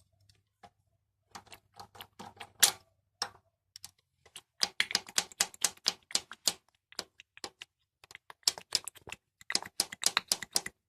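Ratchet wrench clicking in quick runs while bolts are undone on a moped engine, with a few scattered clicks first, then two long bursts of rapid clicking.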